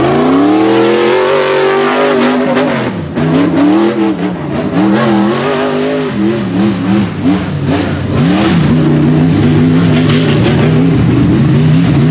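Rock bouncer race buggy's engine revving hard under load. The revs climb sharply at the start, then rise and fall repeatedly as the throttle is worked.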